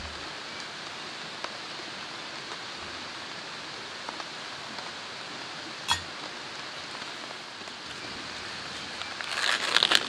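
Steady rush of flowing water underneath, with one sharp click about six seconds in. Near the end comes a loud crinkling as a foil ready-meal pouch is handled and opened.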